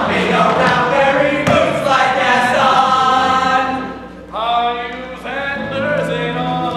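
Male ensemble of teenage voices singing together in chorus, with a short drop about four seconds in before a new held sung chord swells up.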